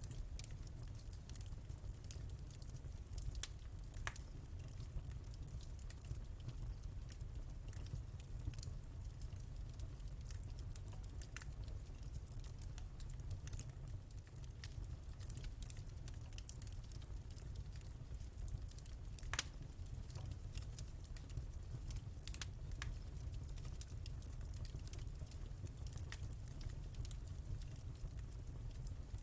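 Wood fire burning in a fireplace: a steady low roar of the flames with irregular sharp crackles and pops from the burning logs, one louder pop about nineteen seconds in.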